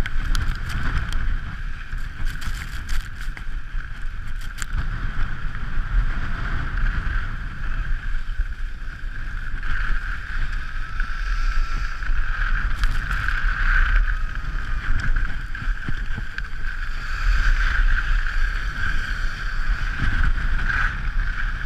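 Wind noise on a GoPro Hero3's microphone while skiing downhill, a steady low rumble, with the continuous hiss of skis sliding over packed snow. A few sharp clicks in the first few seconds.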